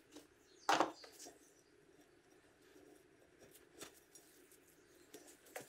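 Gloved hands handling a camshaft and its sealing rings on a workbench: one sharp knock of metal parts near the start, then a few faint clicks and light handling noises.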